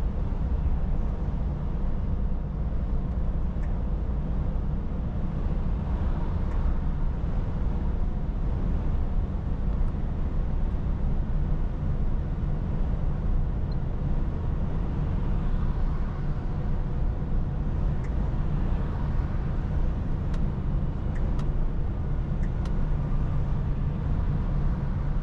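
Scania S450 lorry's 13-litre inline-six diesel running at road speed with tyre and road noise: a steady low drone inside the cab.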